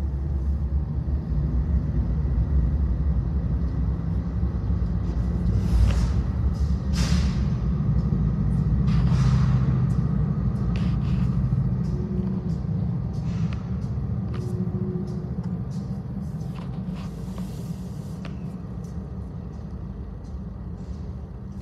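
Union Pacific diesel freight locomotives rumbling low as a train rolls past, with several short hisses over the top. The rumble fades over the last several seconds.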